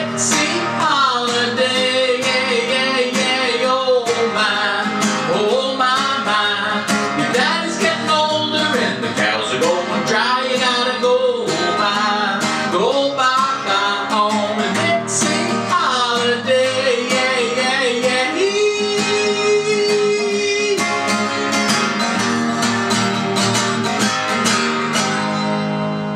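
A man singing and strumming an acoustic guitar. His voice stops about five seconds before the end, and the guitar strums on alone to finish the song.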